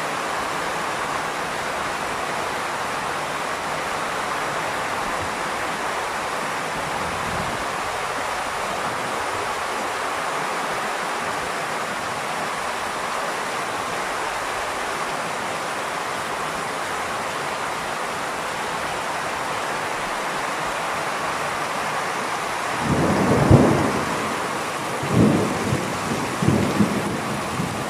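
Heavy rain pouring steadily in a thunderstorm. About five seconds before the end a loud rumble of thunder rises and fades, followed by two shorter rumbles.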